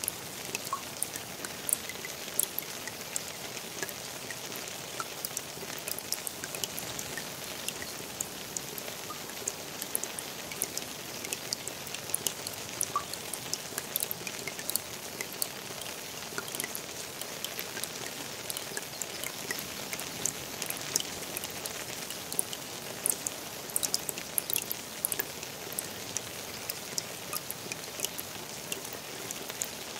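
Steady rain falling on a small garden pond: an even soft hiss dotted with many sharp individual splashes of drops hitting the water.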